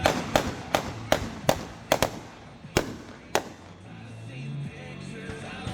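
Fireworks going off: a quick run of sharp bangs, about nine in the first three and a half seconds, then a lull with music playing underneath.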